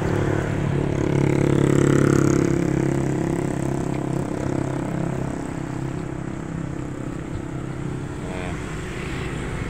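Road traffic: a motor vehicle's engine passing close by, loudest about two seconds in and then fading, over a steady engine hum.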